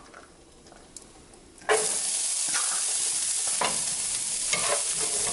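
Chopped onions dropped into hot sesame oil in a frying pan, starting a sudden, loud, steady sizzle about a second and a half in, with a few scrapes against the pan.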